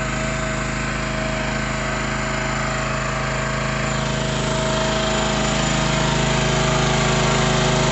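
Small Branco engine on an automated SPT drilling rig running steadily, driving the rig's hydraulic unit; it gets a little louder about halfway through.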